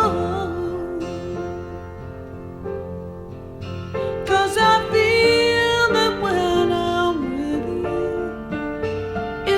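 Music: a slow song with keyboard and guitar accompaniment. It is quieter for the first few seconds, then a melody of held, gliding notes comes in about four seconds in.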